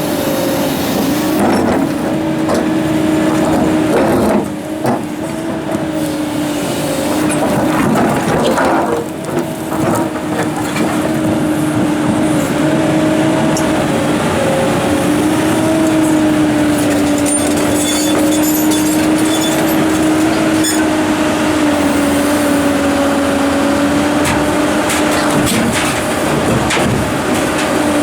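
Komatsu PC290-11 hydraulic excavator working: its engine and hydraulics running steadily with a hum that wavers slightly in pitch, and a few knocks and scrapes of rock, around four and nine seconds in.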